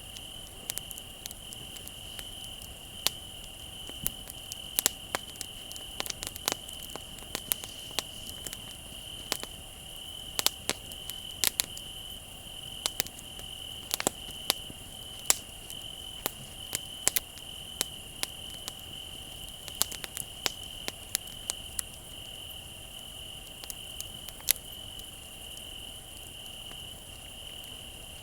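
Wood bonfire crackling with irregular sharp pops, over the steady high trill of crickets.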